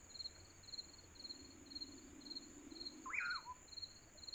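Night insects: a cricket chirping about twice a second over a steady high trill, with one short bird call about three seconds in.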